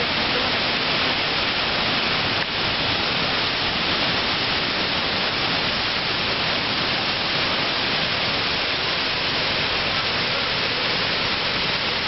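La Fortuna waterfall, a tall single drop pouring into its plunge pool: a steady, even rush of falling and crashing water.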